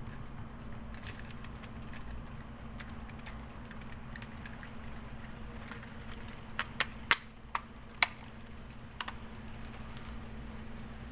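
A steady low hum, with a quick run of about six sharp clicks a little past the middle, like keys or buttons being pressed.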